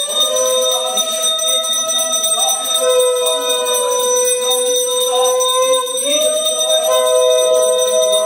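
Puja hand bell ringing continuously, over loud held notes that change pitch every few seconds.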